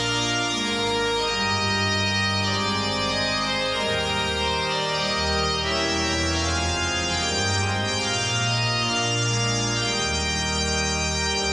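Organ music: sustained chords over a bass line that moves to a new note every second or two.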